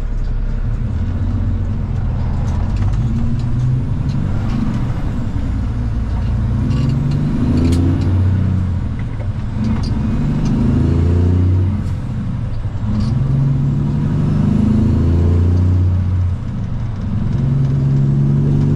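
Diesel engine of a Peterbilt 379 semi truck, heard from inside the cab, pulling through the gears: the engine note climbs, then drops back at each upshift several times, with light rattles from the cab.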